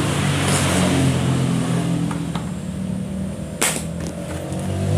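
Cordless impact wrench running, driving a freewheel remover tool to unscrew a threaded bicycle freewheel sprocket from the hub. A single sharp metallic click comes about three and a half seconds in.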